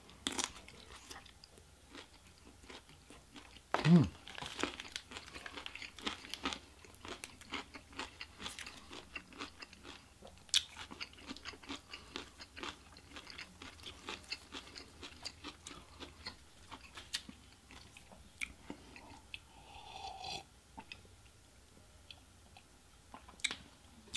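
Close-up chewing and crunching of takeout Chinese food, with many small wet mouth clicks and crackles. One louder bite or knock about four seconds in.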